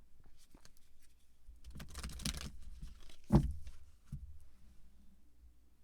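Oracle cards being handled: small papery clicks and a rustling swell about two seconds in, then a soft thump a little over three seconds in, the loudest sound.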